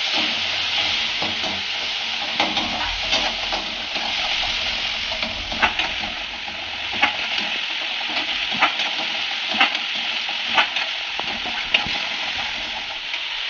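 Spiced onion-tomato masala sizzling steadily in a metal kadai as it is stirred with a metal spatula. From the middle onward, the spatula knocks against the pan about once a second.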